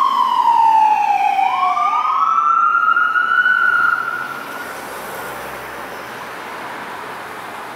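Ambulance siren on a slow wail, falling in pitch for about two seconds and then rising again, cutting off about four seconds in. Road noise of passing traffic follows.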